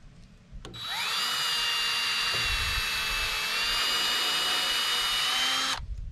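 Electric power tool motor spinning up with a rising whine, running at a steady high pitch for about five seconds, then cutting off abruptly.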